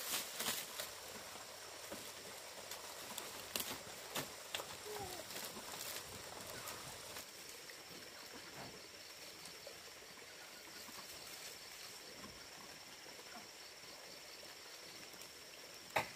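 Dry thatching leaves rustling and crackling as they are handled and laid on a roof, with scattered sharp clicks in the first few seconds. From about halfway, a faint steady high-pitched whine with a fast pulse runs in the background.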